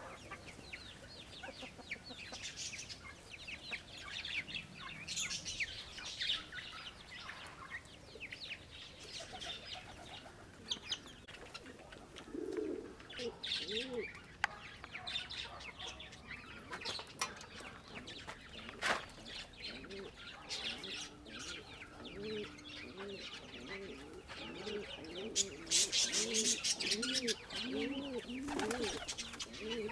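Domestic pigeons cooing, a low rising-and-falling coo repeated over and over, sparse at first and steady through the second half. High chirps and twitters of small birds run throughout, with a louder flurry of noisy sound near the end.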